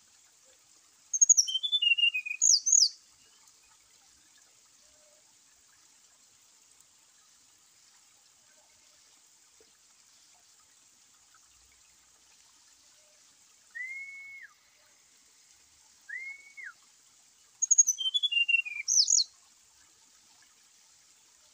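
Brown-chested jungle flycatcher singing: a short, loud phrase of quick high notes tumbling downward about a second in, and again near the end. Between them come two softer, arched whistles.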